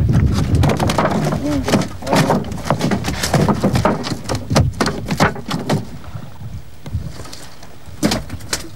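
A large fish thrashing in a net on the wooden bottom of a fishing boat: a rapid, irregular run of knocks and slaps against the planks that eases off about six seconds in and flares again near the end.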